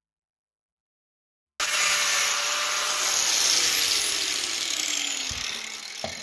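Angle grinder with an abrasive disc, shaving down a motor mount: it cuts in abruptly and loudly about a second and a half in, then its whine falls steadily in pitch as the disc spins down. A short knock near the end.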